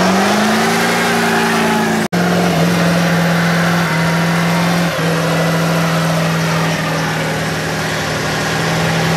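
Ford pickup's engine held at high revs during a burnout, a loud steady drone that climbs slightly in the first second, then holds at a slightly lower pitch after a brief dropout about two seconds in, while the rear tyres spin and smoke.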